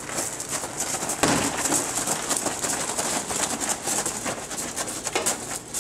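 Several people's boots crunching and shuffling on gravel as they move together, a dense, irregular run of small clicks and rustling.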